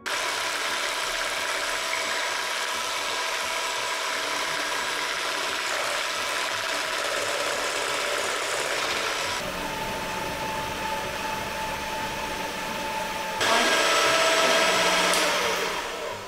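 Electric hand mixer running, its two wire beaters whisking eggs, sugar and melted butter in a stainless steel bowl: a steady motor hum with the whirr of the beaters in the batter, beaten until it turns whitish. The sound shifts about nine seconds in, gets louder about thirteen seconds in, and fades out near the end.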